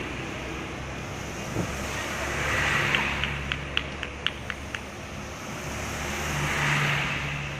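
Road traffic: a steady low engine hum, with vehicles swelling past twice. In the middle comes a quick run of about eight short, sharp clicks.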